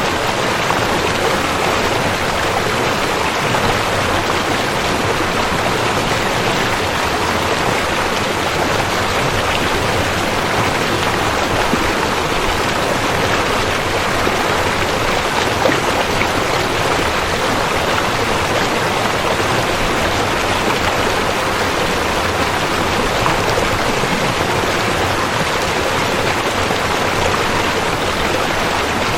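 River water flowing, a steady, even rushing without a break.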